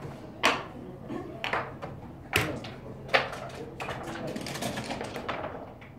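Sharp clacks of backgammon play in the room, the loudest about half a second, two and a half and three seconds in, with lighter ones between, over a low murmur of voices.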